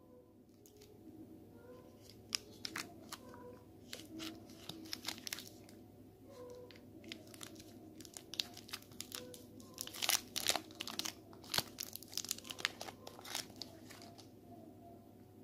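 Shiny twist-end wrapper of a Kinder Bueno Mini crinkling as fingers untwist its ends and peel it open, in irregular crackles that are densest and loudest about two-thirds of the way through.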